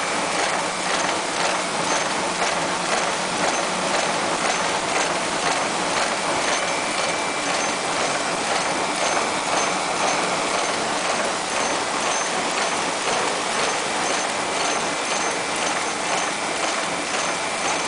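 Multi-former wire and strip forming machine running, a steady dense mechanical clatter of rapid, regular strokes as it forms small copper parts.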